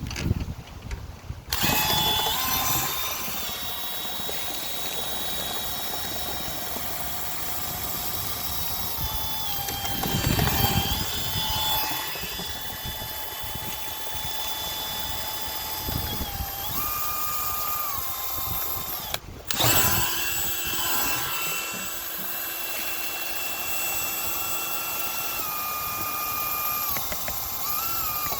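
Power drill running, most likely spinning a rotary dryer-vent cleaning brush. Its motor pitch steps up and down as the trigger is eased, with louder scraping now and then. It starts about a second and a half in and stops briefly about two-thirds of the way through before running again.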